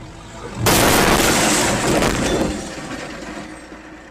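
Car crash heard from inside the dash-cam car: a sudden loud impact with breaking glass about two-thirds of a second in, the noise going on for about two seconds and then fading.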